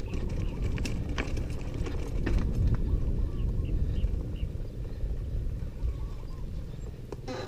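Mountain bike rattling and knocking over a rough dirt trail, with a steady low wind rumble on the microphone; a few sharp knocks come in the first couple of seconds.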